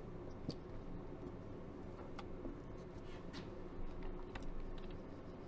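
Faint steady room tone with a low hum, broken by a few soft, scattered ticks.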